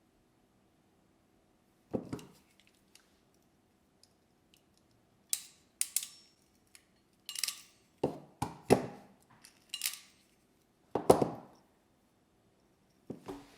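About ten irregular knocks and metallic clinks, like small tools or parts being picked up and set down on a workbench, over a faint steady hum.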